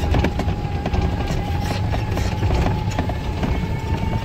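Open-cab utility vehicle driving over a bumpy dirt field: a low rumble with frequent rattles and knocks from the frame, and a faint steady whine that rises slightly near the end.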